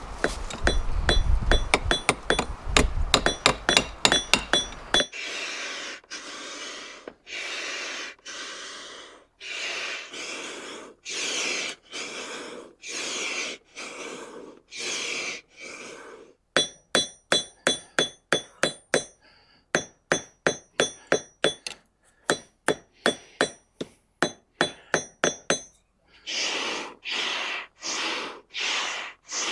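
Hand hammer striking hot file steel on a small anvil in runs of ringing blows, about three a second. These alternate with the whoosh of a camping air pump worked about once a second to blow air into the charcoal forge.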